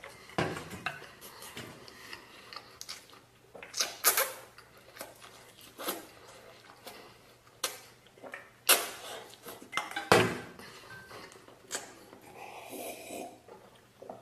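Eating utensils clinking against a bowl, in a series of separate sharp clinks a second or few apart, with quieter eating noises between them.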